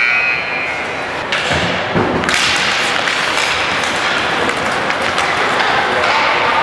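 Ice hockey rink noise: a few knocks and thuds, of the kind pucks, sticks and bodies make against the boards, over a steady hiss that comes in sharply about two seconds in.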